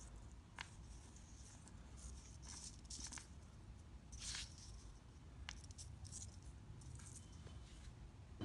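Faint rustling and scraping with a few light ticks as fishing hooks and monofilament line are handled and laid on paper.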